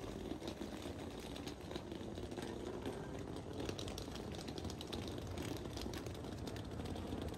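Steady engine and road noise heard from inside a moving car, with faint irregular ticks and rattles.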